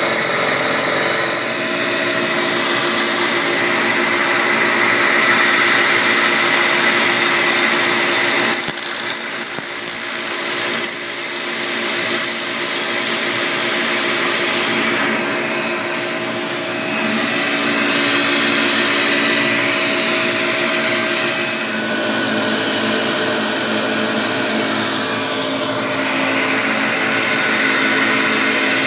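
Haas TM-1 CNC mill running its spindle and milling Delrin with an end mill: a steady whine of several tones over a hiss of cutting. The tones change abruptly about nine seconds in and again about twenty-two seconds in.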